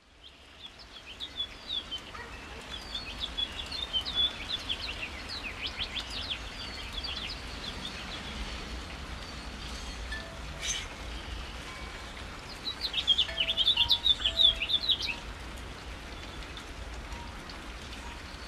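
Steady rain with small birds chirping in quick clusters of high, sharp notes. The chirping is busiest in the first several seconds and again about thirteen to fifteen seconds in. The rain fades in at the very start.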